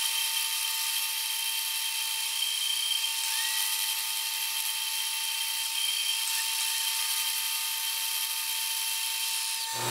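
Milling machine spindle running as an end mill takes a light skim pass of a thousandth or two across the top of a small metal key, to bring the not-quite-flat surface flat. A steady machine sound with a constant high whine.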